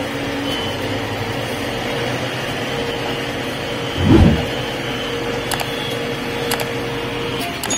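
JCB 3DX backhoe loader's diesel engine running as the machine drives, heard inside the cab, with a steady whine throughout. About four seconds in there is a brief, louder low thud.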